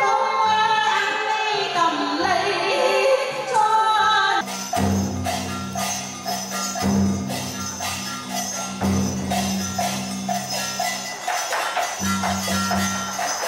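Traditional Vietnamese water puppet theatre music played live: a woman sings a folk melody into a microphone over instrumental accompaniment. About four seconds in it changes abruptly to percussion-led music, quick regular strikes over a low steady tone.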